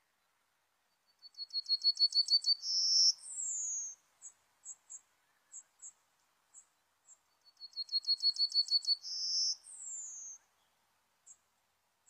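Yellowhammer singing twice: each song is a quick run of about eight repeated high notes ending in a longer held note and a falling slurred note. Short high ticks come between and after the songs.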